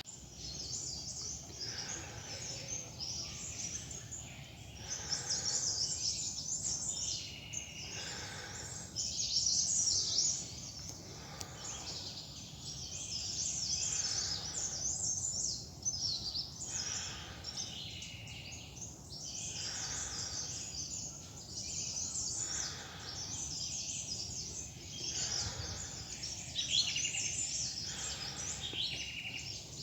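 Several small forest birds chirping and trilling continually in quick, high-pitched phrases, over a steady low rumble.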